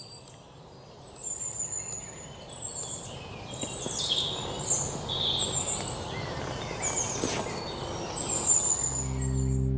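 Birds chirping, many short high calls one after another over a steady low background hiss. Near the end a steady, held music chord comes in.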